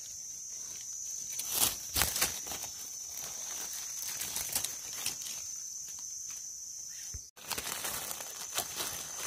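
Dry leaf litter rustling and crinkling as a wild mushroom is dug out and its stem base scraped clean with a small knife, with a few louder crackles about two seconds in. A steady high-pitched insect drone runs underneath, and the sound cuts out for an instant just past seven seconds.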